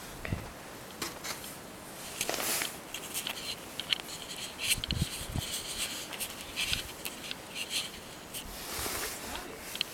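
Footsteps crunching and scraping through deep snow, irregular and uneven.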